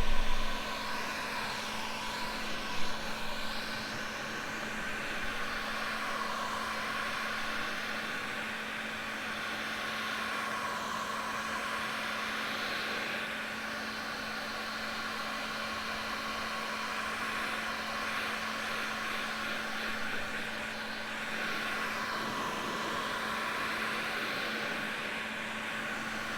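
Electric heat gun blowing steadily, a constant motor hum under a rushing hiss of air that wavers slowly, heating the bumper to soften it for reshaping.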